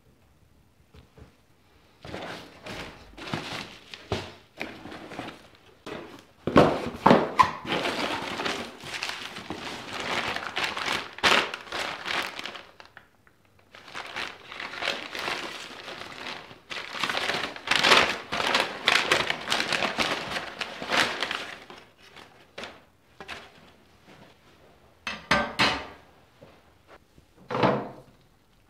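Parts being handled and unpacked on a workbench: rustling and crinkling of plastic bags and cardboard packing, broken by frequent knocks and clunks as parts are picked up and set down. Two short, louder clatters come near the end.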